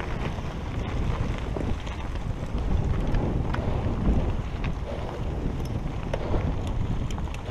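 Wind buffeting a helmet-mounted camera's microphone over the rumble of a mountain bike rolling fast across rocky ground, with scattered small clicks and rattles.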